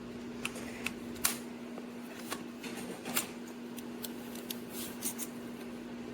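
Light plastic clicks and taps, about a dozen at uneven intervals, from a selfie stick tripod and its Bluetooth remote being handled, over a steady low hum.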